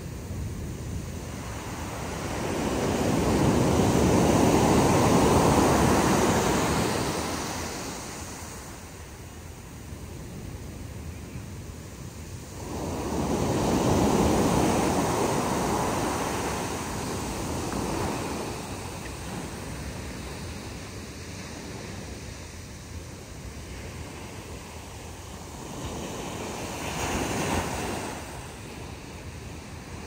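Ocean surf breaking and washing up a sandy beach in slow surges of rushing foam: a big swell a few seconds in, the loudest, another about halfway through, and a smaller one near the end, with a steady hiss of surf between.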